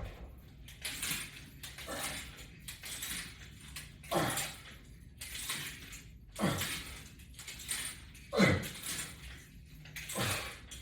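A man breathing hard in rhythm while doing resistance-band curls, with a forceful exhale about every two seconds and softer breaths in between.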